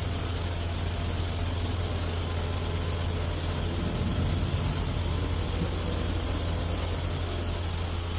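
A steady low mechanical hum under a constant rushing noise, swelling slightly in the low range about four seconds in.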